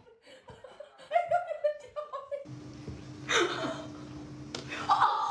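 A person laughing in short repeated bursts. A little past halfway the sound changes abruptly to a steady low hum with a loud rush of noise over it.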